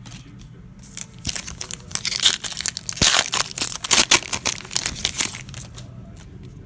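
Foil wrapper of a trading card pack crinkling and tearing as it is ripped open by hand, a dense crackle for a few seconds, loudest in the middle.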